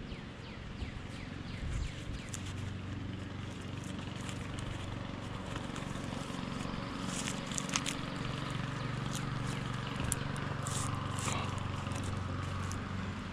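A steady low engine hum, with scattered sharp clicks and crackles over it.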